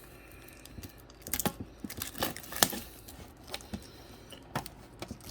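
Plastic packaging of Pokémon card bundles crinkling and crackling as it is handled, in scattered short sharp bursts.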